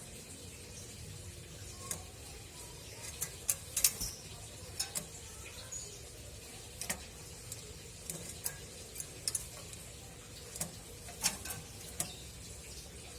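Scattered sharp clicks and light taps at irregular intervals, loudest just before four seconds in and around eleven seconds in, over a faint steady background hiss.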